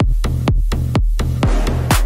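Electronic dance music with a steady, fast drum beat and heavy bass; a hissing swell rises near the end.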